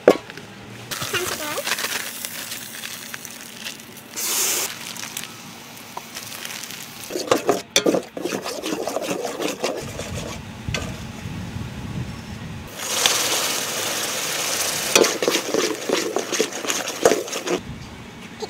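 A metal ladle stirring and scraping in a large metal pot of water, with repeated clinks against the pot, over stretches of hissing noise.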